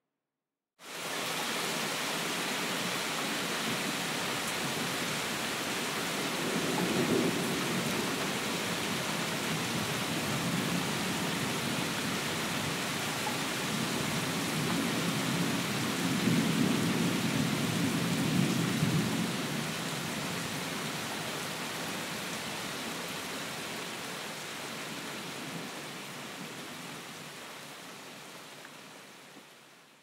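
Steady rain hiss with low rolling thunder rumbles, a short one a few seconds in and a longer one through the middle. The sound cuts in suddenly after about a second of silence and fades out near the end.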